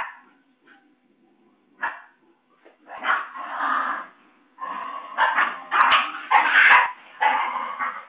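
Basenji puppies yipping and yelping as they play-fight: a few short sharp yips at first, then near-continuous squabbling from about three seconds in.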